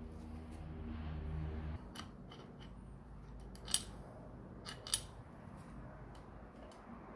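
A few light metallic clicks and clinks as the alternator stator is handled and lifted out of its aluminium engine cover, with a faint low hum that stops about two seconds in.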